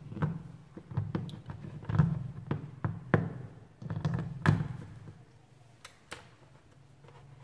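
Removable plastic pieces of an anatomical pelvis model being handled, lifted out and set back in place. A string of light clicks and knocks over the first five seconds, then two quick clicks about six seconds in.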